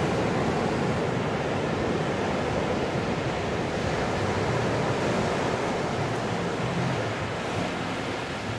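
Ocean surf breaking and washing up a sand beach: a continuous rush of water that slowly eases off in loudness.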